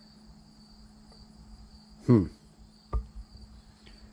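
Crickets trilling steadily over a faint low hum. About two seconds in, a short pitched sound slides quickly downward, and about a second later comes a single sharp knock.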